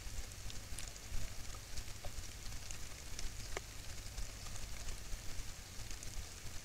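Steady low hum and hiss of a trail camera's microphone with a few faint scattered crackles and ticks, the clearest about three and a half seconds in: dry leaf litter under a walking jaguarundi's feet.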